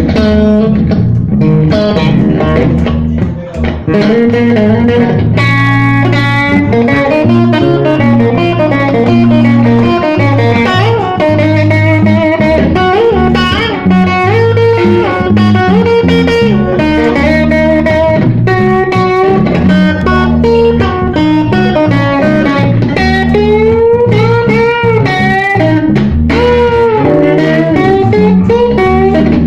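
A blues band playing: an electric guitar plays a lead line with bent notes over bass guitar, loud and continuous.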